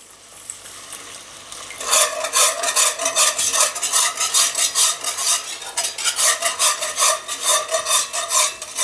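Wire balloon whisk scraping against the bottom of a cast-iron Dutch oven, whisking broth into a flour-and-margarine roux. Softer for the first two seconds, then rapid, regular scraping strokes, about three to four a second.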